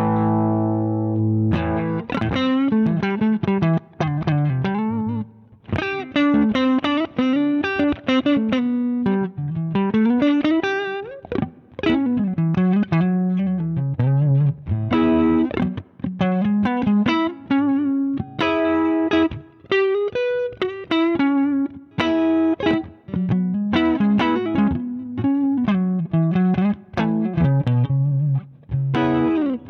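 Electric guitar played through a Zander Circuitry Surplus overdrive pedal, with a crunchy overdriven tone. A chord rings at the start, then picked single-note riffs with slides up and down the neck follow, broken by short pauses between phrases.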